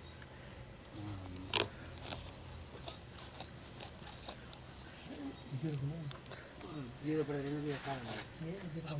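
Crickets chirring in one steady, unbroken high trill, with scattered clicks and rustles of handling close by. Faint voices murmur in the background about halfway through.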